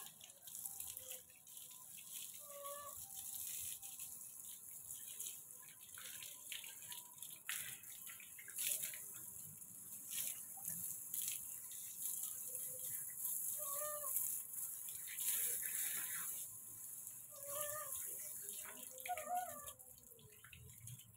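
Water from a garden hose splashing over a monkey being bathed and onto wet concrete, a continuous hissing splash that surges louder now and then as the stream and the hand move over the fur.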